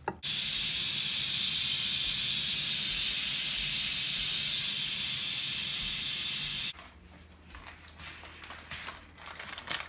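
Instant Pot electric pressure cooker venting steam through its pressure-release valve: a loud, steady hiss that starts suddenly and stops suddenly after about six and a half seconds.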